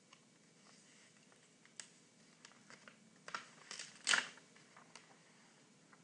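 Picture-book page being turned by hand: faint paper crackles and small clicks, with one louder paper rustle about four seconds in.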